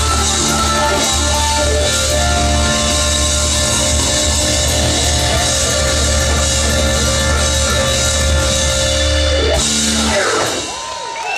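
Live blues band playing: electric guitar over bass and drums, held notes ringing out as the song ends about ten seconds in. The band then falls quiet and wavering crowd noise begins.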